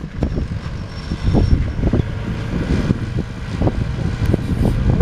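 Fire truck's engine running as a steady low rumble, with wind buffeting the microphone in uneven gusts.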